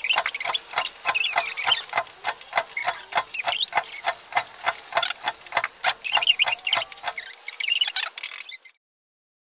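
A spoon clinking and scraping against a small cup as yeast is stirred into water, about four quick strikes a second with high squeaks between them. It cuts off suddenly near the end.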